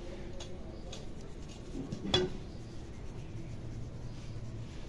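Quiet handling noises with one sharp click about two seconds in, over a steady low hum.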